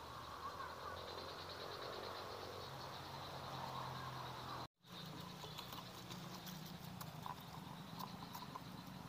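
Faint chorus of frogs and insects calling, with a fast steady trill. The sound drops out briefly about halfway through, and after that only a fainter background with a few small clicks remains.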